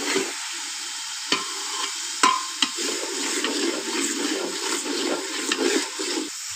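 Slotted metal spoon stirring browned onions frying in a little water in an aluminium pot over a steady sizzle, with a few sharp clicks as the spoon knocks against the pot.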